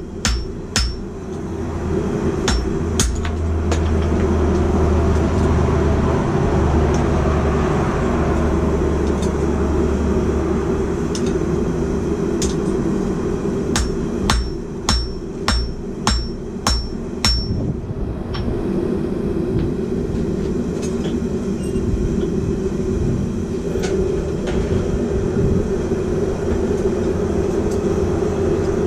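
Hand hammer striking hot steel on an anvil: ringing blows at about two a second, a few near the start and a run of about eight about halfway through. A steady rushing roar runs underneath throughout.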